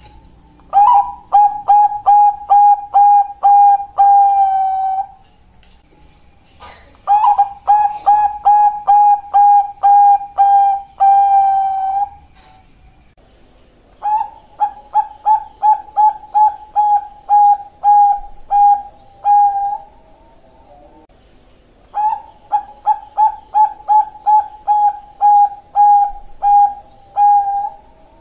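Zebra dove (Bangkok-type perkutut) song: four bouts of rapid, evenly spaced staccato cooing notes, about two a second, most bouts ending in a longer drawn-out note, with short pauses between bouts.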